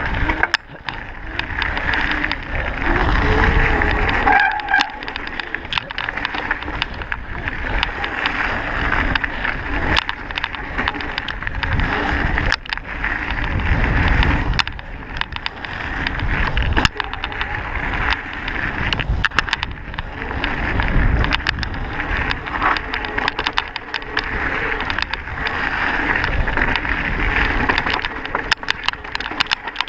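Mountain bike ridden fast over a gravel and dirt woodland trail: tyres rolling over the loose surface and the bike rattling, with frequent sharp clicks and knocks from the rough ground. Low rumbling swells of wind on the microphone come and go every several seconds.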